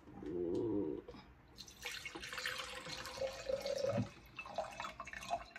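Distilled water pouring from a large plastic jug into a glass pitcher: a splashing stream with a faint tone that rises as the pitcher fills. A brief low sound comes first, in the first second.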